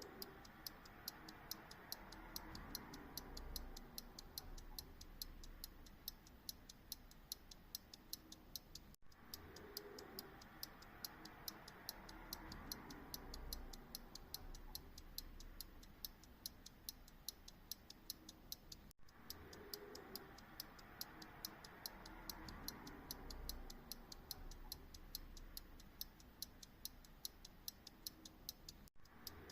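Faint, steady, evenly spaced ticking of a mechanical pocket watch, over a faint low background hum.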